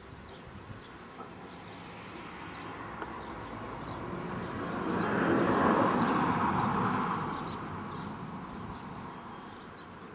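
A vehicle passing by: a broad rushing noise that swells to its loudest about six seconds in, then fades away.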